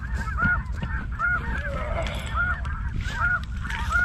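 Geese honking: many short, high calls overlapping and repeating several times a second, over a steady low rumble.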